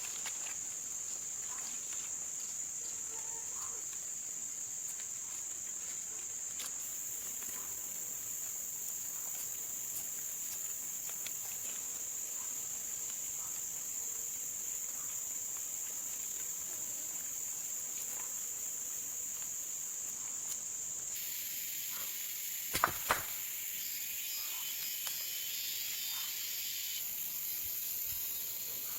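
Steady high-pitched buzzing of insects in the forest. About 21 s in, a hiss joins, and a couple of seconds later come two sharp knocks close together.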